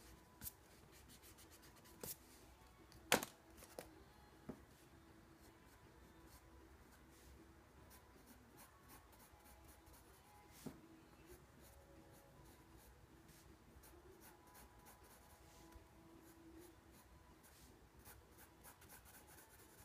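Faint scratching of a pencil drawing short strokes on sketchbook paper, with a few sharper taps or clicks, the loudest about three seconds in.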